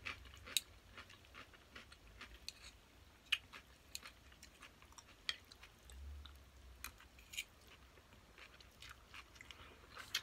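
Close-up chewing of a mouthful of glass-noodle salad, with soft, irregular wet mouth clicks and smacks.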